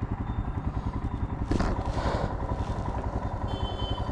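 Royal Enfield Himalayan's single-cylinder engine running with an even, low pulsing beat. A sharp clatter followed by a short scraping noise comes about one and a half seconds in, and a brief high tone sounds near the end.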